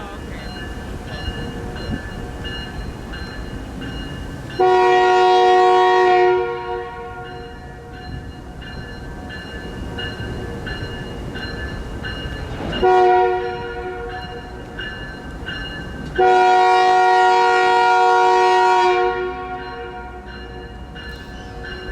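Canadian Pacific diesel freight locomotive's multi-chime air horn sounding a long blast, a short blast, then a long blast, over the steady rumble of the slow-moving train.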